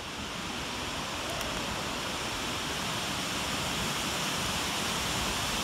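Steady rushing of a mountain stream tumbling over rocks in a deep gorge.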